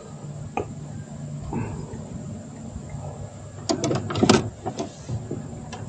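A quick run of knocks and rattles from things being moved about in a small boat, bunched about four seconds in, over a low steady hum.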